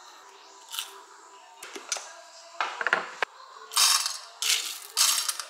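Espresso tools being handled at a coffee grinder: a run of short clinks and clatters of small metal and plastic parts, coming thicker in the second half.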